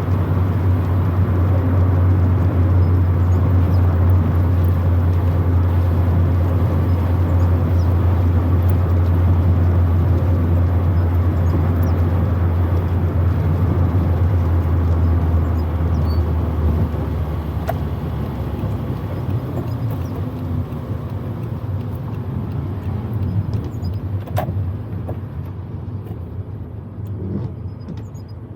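Proton Wira 1.5's four-cylinder engine and road noise heard from inside the cabin: a steady low drone for about the first half, then fading as the car slows. A couple of faint clicks in the second half.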